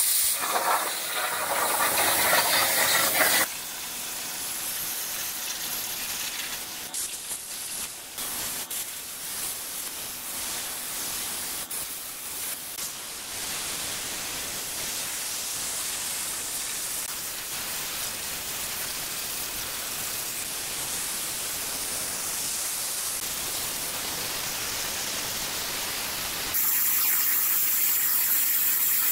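CNC plasma cutter's torch cutting 3 mm mild steel plate: a steady hiss from the arc and its air jet. It is louder for the first few seconds and again near the end.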